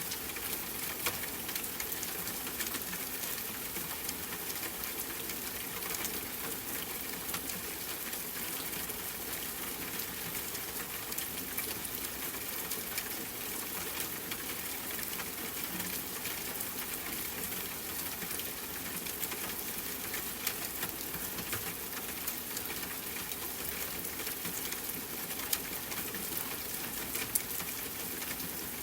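Steady rain pattering, with many small sharp drop ticks over an even hiss.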